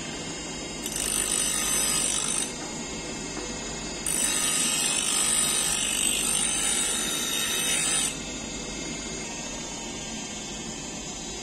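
Bench grinder's emery wheel grinding the bevel of a forged steel adze blade in two passes: a short one of about a second and a half starting about a second in, then a longer one of about four seconds starting about four seconds in. Each pass is a loud, high-pitched hiss of steel on the spinning wheel.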